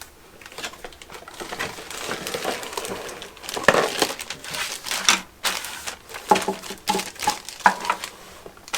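A cardboard kit box being opened and its contents handled: irregular crinkling and rustling of packaging with scattered clicks and knocks, busier in the second half.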